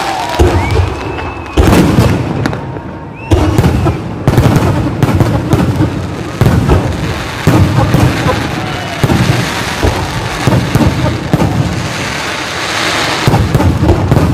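Aerial firework shells bursting overhead in an irregular string of loud bangs, roughly one a second, over a steady wash of fizzing and crackle.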